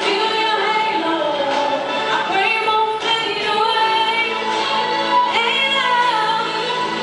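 Music with a female voice singing over a full accompaniment.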